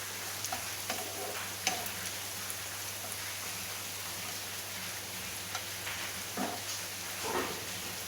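Chopped onions sizzling steadily as they fry in hot oil in a pan, with a few short scrapes of a spoon stirring them.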